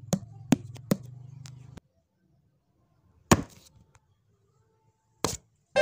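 Cartoon sound effects: a low dragging rumble with four sharp knocks over the first two seconds, as a heavy sign is shoved along, then two single hard hits about two seconds apart.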